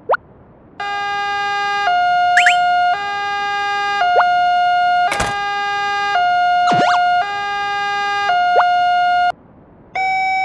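Electronic two-tone hi-lo siren, switching between two pitches about once a second, with short whistling pitch sweeps laid over it and a click about halfway through. It cuts off shortly before the end, and after a brief gap a different two-tone siren starts.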